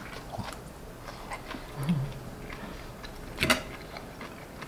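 Metal forks and knives clicking lightly on ceramic plates while steak is eaten, with soft mouth sounds of chewing. One sharper clink of cutlery on a plate about three and a half seconds in.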